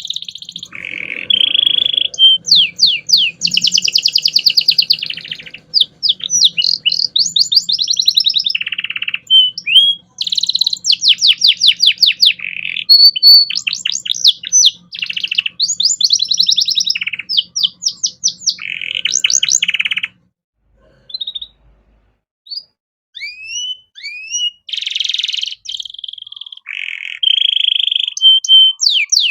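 Canary singing a long, varied song of rapid trills and rolling phrases, nearly without pause. About two-thirds through the song breaks off for a few seconds, leaving only a few short rising chirps, then starts again.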